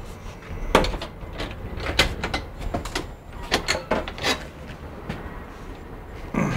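Inside a bus: a steady low engine rumble under a run of sharp knocks and clatters lasting about three and a half seconds, then a heavier thump near the end.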